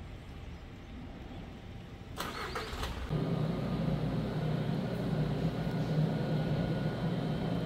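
A short burst of clatter about two seconds in, then a steady low machine hum from about three seconds on.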